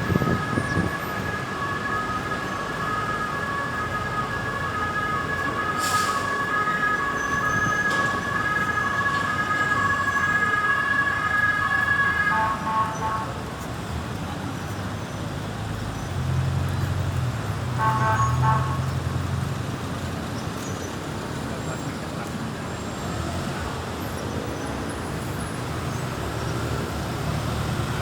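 Emergency vehicle siren sounding over road traffic: a steady high tone with a second, pulsing two-note tone under it, both cutting off about halfway through. A short multi-note horn blast and a passing engine follow a few seconds later.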